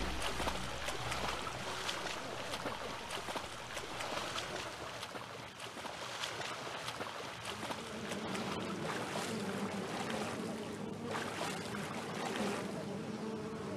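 Shallow lagoon water splashing and trickling, with many small ticks. From about halfway a steady buzz of flies joins in.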